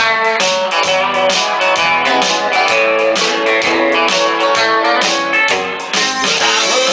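Live country band playing a song's instrumental intro: electric guitar lines over strummed guitar and bass, with drums keeping a steady beat.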